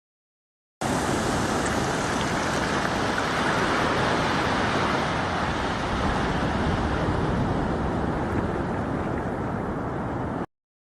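Steady rushing noise of sea surf and wind, with a low rumble of wind on the microphone; it starts abruptly about a second in and cuts off sharply just before the end.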